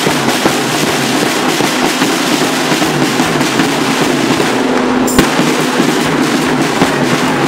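A fans' drum band of bass drum and snare drums beaten rapidly in a loud, dense clatter, with one sharp crack about five seconds in.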